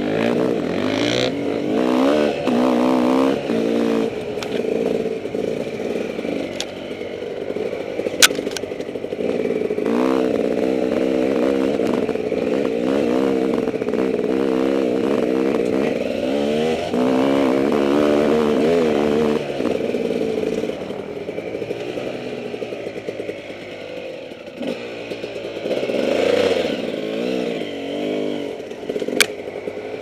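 Dirt bike engine revving up and down with constant throttle changes on a rough trail, its pitch rising and falling every second or two. Two sharp knocks stand out, one about eight seconds in and one near the end.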